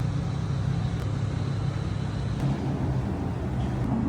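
Pressure washer spraying the patio's grease-stained surface, its motor running steadily under load with an even hum and hiss. Near the end the hum rises a little in pitch and gets louder.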